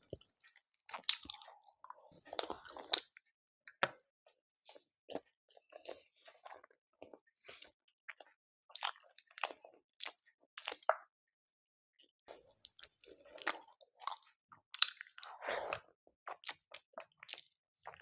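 Close-miked chewing of a chicken curry meal: wet, squishing mouth sounds with irregular smacks and clicks, and a short pause about two thirds of the way through.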